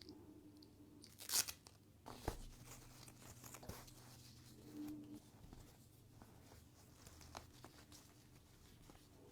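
Quiet close-up handling of a surprise-doll toy and its packaging: a short crinkling tear about a second in, then a few light clicks and taps of plastic parts.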